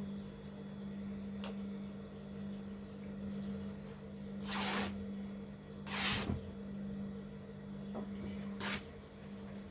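Scissors cutting fabric: three short, hissing cuts, the first about four and a half seconds in, over a steady low hum.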